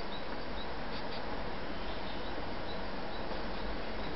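Steady background hiss with faint short high chirps scattered through it; the sewing machine itself is not running.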